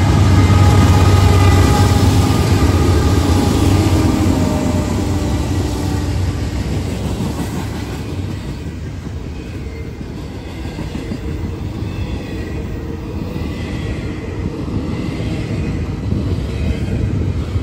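Norfolk Southern freight train passing close by. The diesel locomotives' low engine rumble is loudest in the first few seconds, then gives way to the steady rumble and clatter of double-stack container cars rolling over the rails.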